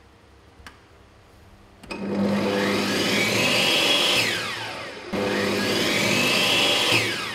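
Makita table saw's motor switched on and running with a high whine, then switched off with the knee-worked kill-switch paddle and winding down in a falling whine. It is started again at once and winds down a second time near the end.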